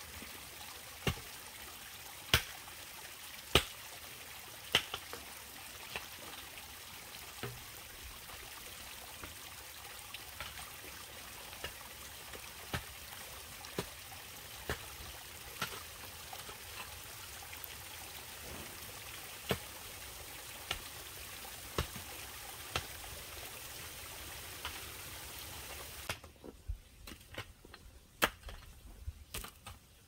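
Hoe blade chopping into soil about once a second, sharp strikes over the steady trickle of stream water. Near the end the water sound drops away and the strikes come quicker and less even.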